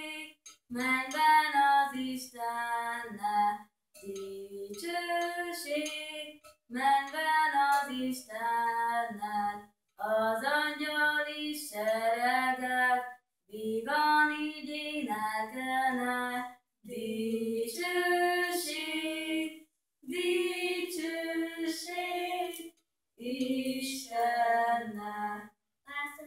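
Girls singing a Hungarian Christmas nativity-play song without accompaniment, in phrases of about three seconds with a short breath between each.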